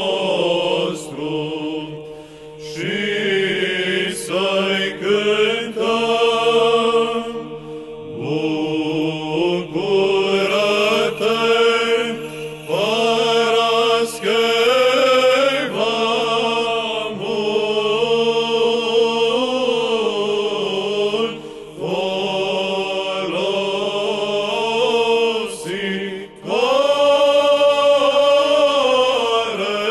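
Men's choir singing Byzantine-style Orthodox chant in long melismatic phrases over a steady held drone note, with short breaths between phrases.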